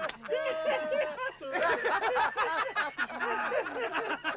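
Several men laughing hard together, their laughter overlapping.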